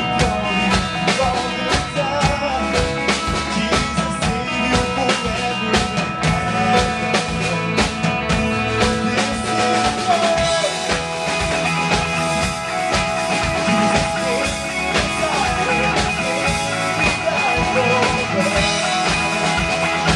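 Live band playing a worship song: several singers in unison and harmony over a drum kit keeping a steady beat, with keyboard, electric guitar and bass guitar.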